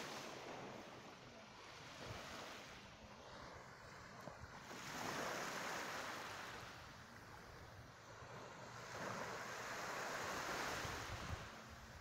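Small waves washing up on a sandy beach, the surf noise swelling twice, about five and nine seconds in.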